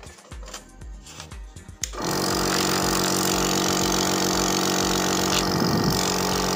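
Apollo Pharmacy compressor nebulizer switched on about two seconds in, then running steadily: an even motor hum under a loud rush of air.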